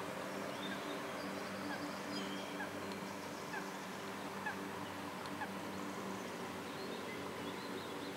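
A bird repeating a short falling call about once a second, with fainter bird calls higher up, over a steady low hum.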